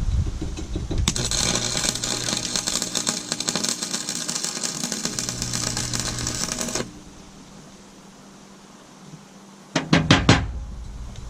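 Stick-welder arc crackling steadily for about six seconds as a tack weld is laid with a 7018 rod, then cutting off. Near the end come four quick, sharp knocks.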